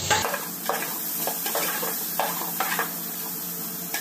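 Wooden spatula stirring and scraping in a large metal pot of frying vegetables for a potato-cauliflower curry, in strokes about two a second, over a steady sizzle of hot oil.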